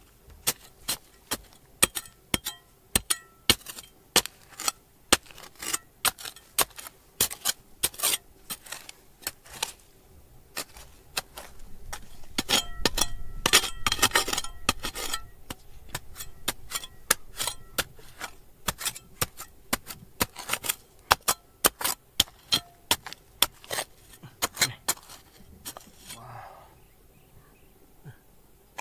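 Repeated sharp clinks and knocks of hard objects striking each other, about two to three a second, some with a short ringing tone. A louder, busier run of strikes with scraping comes about halfway through.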